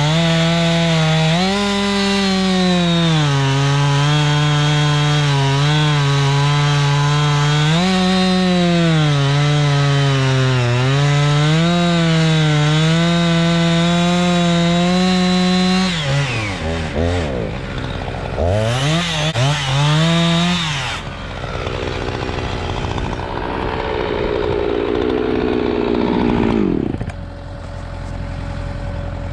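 Two-stroke chainsaw cutting through a log at high revs, its pitch sagging and recovering as the chain bogs under load and frees up. About sixteen seconds in it drops off the throttle, blips a few times and winds down, leaving a lower engine idling.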